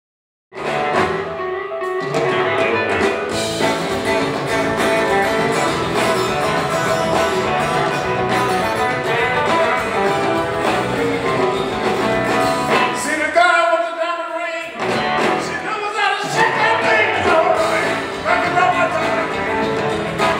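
Live blues band playing on stage, heard from the audience: electric guitars and keyboard in full band sound. It starts about half a second in, and about two-thirds of the way through the bass and drums drop out for about a second while a single high instrumental line carries on.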